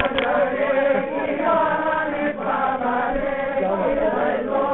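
A group of voices chanting together, many overlapping voices held steadily without a break.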